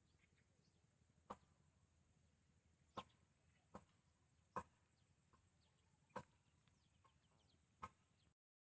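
Near silence of the open air, broken by about six short, sharp clicks at irregular intervals, then dead silence just before the end.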